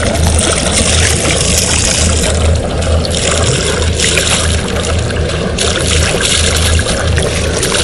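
Seawater sloshing and splashing against the side of a small boat, over a steady low rumble.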